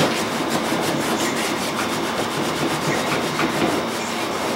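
A rag soaked in paint thinner rubbed briskly back and forth over an elk antler in quick repeated strokes, thinning and blending a fresh coat of antler colour.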